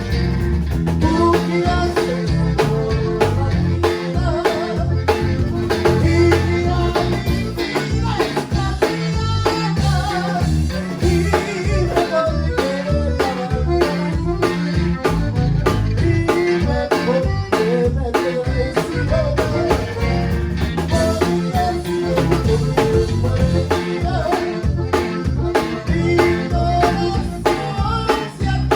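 Live conjunto band playing with a steady beat: button accordion over bajo sexto, bass and drums.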